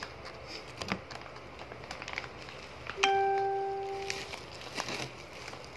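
A single bell-like ding about halfway through: one clear tone that starts suddenly and fades away over about a second. Around it, faint crinkling clicks of plastic bags being handled.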